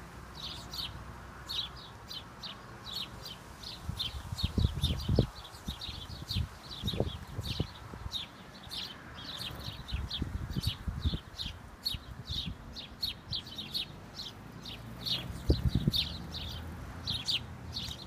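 House sparrows chirping continuously, a steady run of short, high chirps about two or three a second. A few low thuds or rumbles break in here and there.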